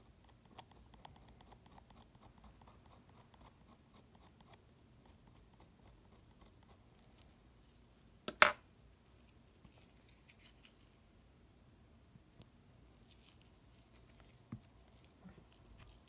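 Fine tweezers handling a thin jumper wire against a metal plate: faint scratching and rapid small ticks, busiest in the first few seconds, with one sharp click a little past halfway and a couple of light ticks near the end.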